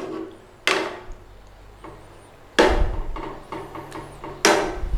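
Three sharp knocks about two seconds apart, each ringing briefly: a cooking spoon striking the curry pan.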